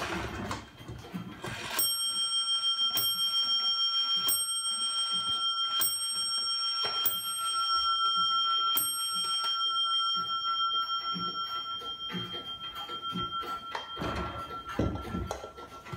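A circa-1820 Black Forest 30-hour countwheel clock striking the hour on its bell: six strokes, roughly every second and a half, each ringing on, the last dying away over several seconds. The number of strokes shows the hour the countwheel has struck, which is used to set the dial to match.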